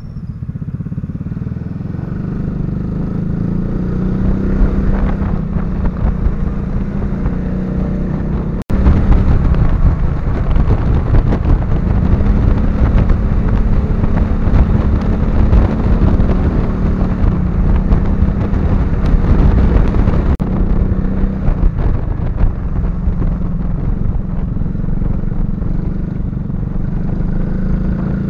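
Motor scooter engine running under way, with wind rushing over the onboard microphone. The sound changes abruptly twice, louder and windier through the middle stretch.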